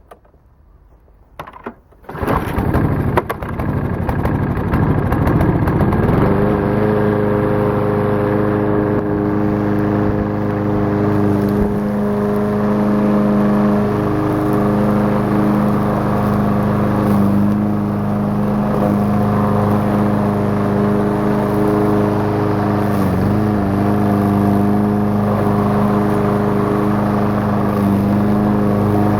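Briggs & Stratton engine on a Troy-Bilt walk-behind lawnmower starting about two seconds in. It climbs in pitch up to speed over a few seconds, then runs steadily while mowing a clump of thick grass. Its pitch dips briefly once, late on.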